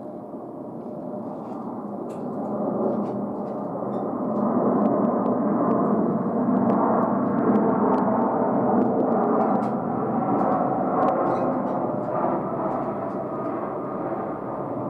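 Jet engine roar of a Spirit Airlines Airbus A320 airliner, a muffled, even rumble that swells over the first few seconds and then holds loud before easing slightly near the end.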